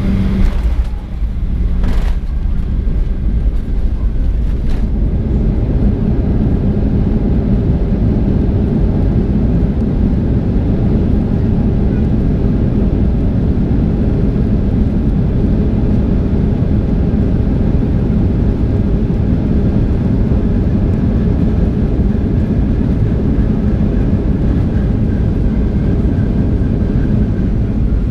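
Steady engine noise and low rumble heard inside the cabin of a Boeing 737-800 with CFM56-7B engines, the airliner rolling on the ground just after landing. A couple of short knocks come in the first five seconds.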